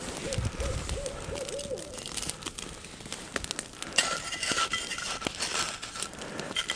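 An owl hooting: a quick run of about six short hoots in the first two seconds, with scattered crackling clicks around it.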